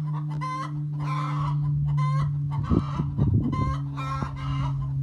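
Backyard hens clucking and calling repeatedly in short pitched calls. A steady low hum runs underneath, with some low rumbling about halfway through.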